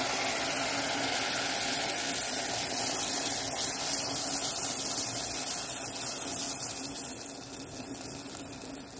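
Picarón dough rings deep-frying in hot oil: a steady sizzle that fades over the last couple of seconds.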